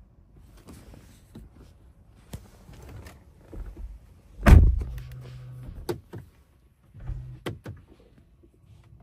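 A heavy thump, then two short low hums of a small electric motor, the first about a second long and the second shorter, with sharp clicks after each.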